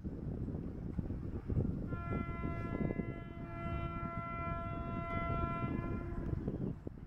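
An Indian Railways electric locomotive sounds one long, steady horn blast of about four seconds as it approaches, over the low rumble of the oncoming train.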